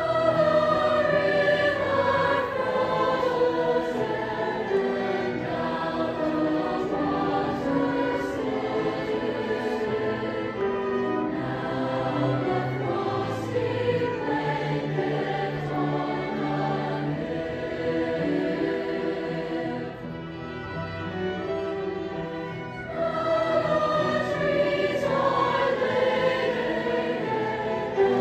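Mixed high-school choir singing a choral piece, accompanied by piano and strings. The singing softens for a few seconds about two-thirds of the way through, then swells again.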